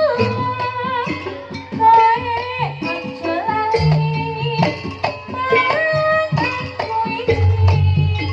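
Live Javanese jaranan music: drums and other struck percussion keep a busy beat under a wavering, sliding lead melody.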